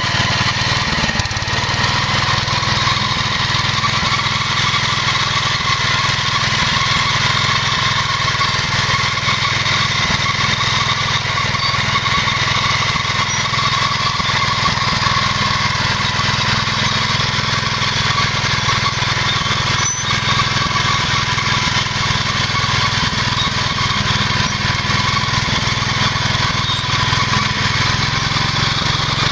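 Power King 2414 garden tractor running steadily at an even, loud level, with a high steady whine over the engine note.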